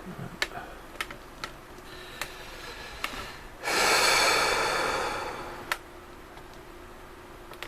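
Light clicks and taps of soft vinyl figure parts being handled and pressed together during CA gluing, then a loud rush of air starting sharply a few seconds in and fading out over about two seconds.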